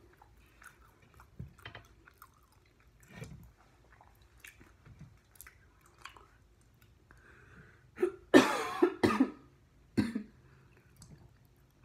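Faint chewing and mouth sounds of someone eating chicken wings, then a run of several harsh coughs and throat clearing about eight seconds in, with one more cough a second later.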